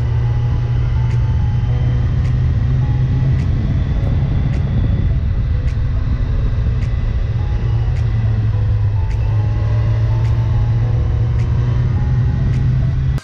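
Sport motorcycle engine running steadily at road speed from the rider's seat, with wind and road noise. A faint tick about once a second.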